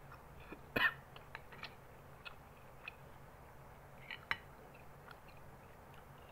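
Metal spoon clinking and scraping against a plate of rice, with soft chewing and mouth sounds between; the sharpest clinks come about a second in and again a little after four seconds.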